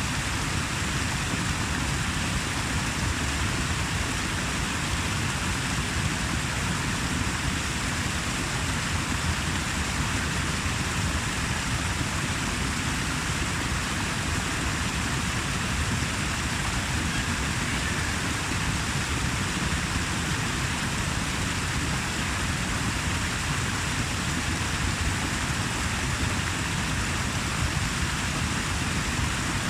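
Water rushing in a steady, even flow, with no breaks or separate splashes.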